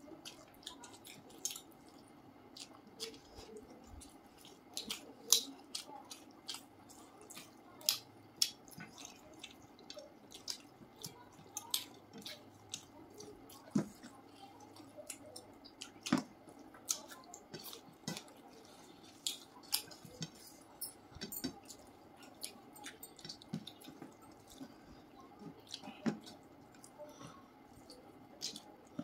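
Close-miked mealtime eating sounds: wet chewing and mouth smacks with fingers squishing rice and curry. The result is an irregular run of short, sharp clicks and pops over a faint steady hum.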